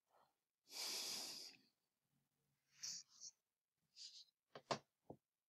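Mostly near silence, broken by one audible breath into the microphone about a second in, then a few faint, brief clicks near the end.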